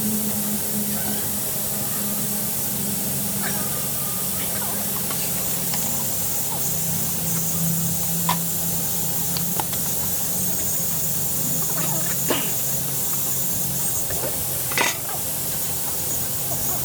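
Steady spraying hiss over a low, even motor hum, with a few sharp clicks and knocks, the loudest near the end.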